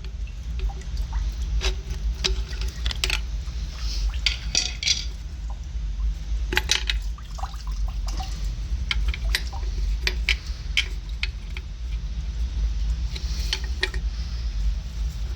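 Water trickling and splashing while metal parts of a Watts 009 backflow preventer's relief valve clink and tap as it is taken apart, over a steady low rumble.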